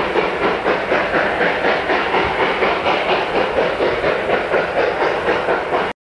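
Narrow-gauge steam train of locomotive 487, a K-36 2-8-2, running with a loud, dense sound pulsing about three times a second, with some steam hiss. The sound cuts off suddenly near the end.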